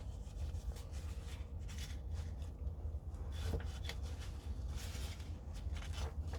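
Microfiber cloth rubbing and scuffing over plastic airsoft magazine parts: soft, irregular rustling and handling noises over a steady low hum.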